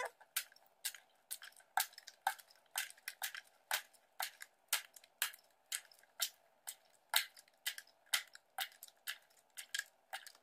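Metal spoon scooping ice out of a bowl and tipping it into a clear plastic tub, spoonful after spoonful: a run of sharp crunchy clinks, about two a second.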